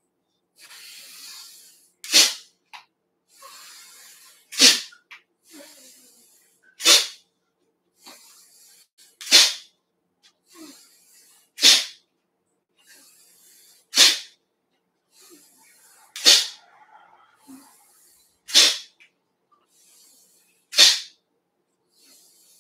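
A person breathing hard through the nose in a steady rhythm. Each time there is a soft inhale, then a sharp, explosive exhale, nine times at about two-second intervals. These are the forceful nasal breath-outs of a Dao Yin qigong exercise.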